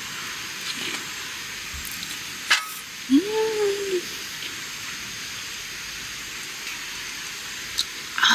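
Steady sizzle of leftover egg batter frying in a pan on a camp gas stove. There is a click about two and a half seconds in and a short hummed 'mmm' just after.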